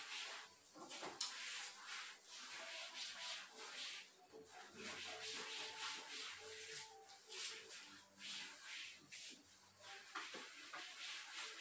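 Cloth wiping and scrubbing the shelves of a wooden shoe rack, a run of uneven rubbing strokes. A single sharp tap about a second in.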